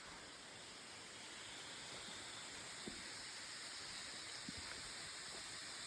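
Distant waterfall: a steady rushing hiss that grows slowly louder, with two faint taps in the middle.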